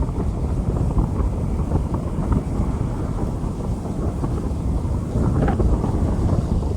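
Rain falling on a street, under a steady heavy low rumble.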